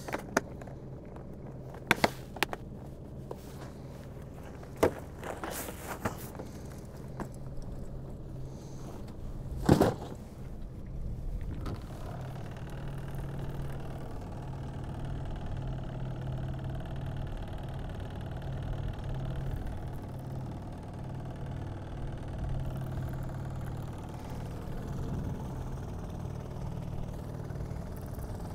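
Small boat outboard motor running steadily at trolling speed. Over it come sharp plastic clicks about two seconds in and again near five seconds, as a tackle box's latches are snapped shut, and a louder knock about ten seconds in.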